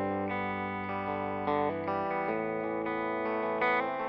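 Background music: a guitar-led instrumental track, its sustained chords changing about every second.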